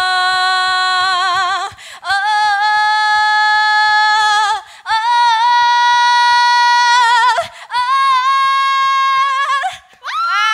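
A woman singing unaccompanied into a microphone: four long held notes with vibrato, each a step higher than the last, a 'four-step high note' vocal showcase.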